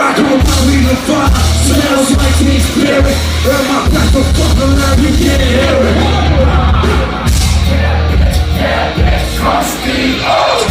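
Loud live hip hop performance over a concert PA: heavy booming bass with yelled and sung vocals on top, the bass dropping out briefly now and then.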